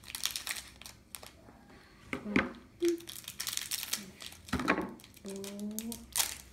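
Crinkly toy blind-bag packet rustling as it is cut open with scissors and the mini figure is pulled out, in short irregular crackles.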